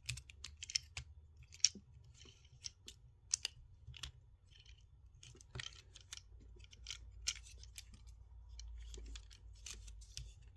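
Plastic parts of a Transformers action figure clicking and scraping irregularly as its joints are moved and parts are shifted during transformation.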